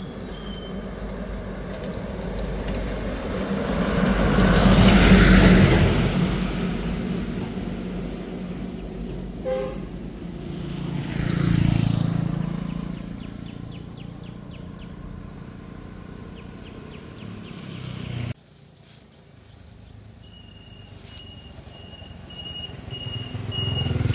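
Motor vehicles driving past, one after another: a loud one swells and fades about five seconds in, and a second passes about twelve seconds in, its pitch dropping as it goes by. A short beep comes just before it. The sound cuts off suddenly near eighteen seconds, leaving a quieter stretch with a thin steady high tone, until another vehicle approaches at the end.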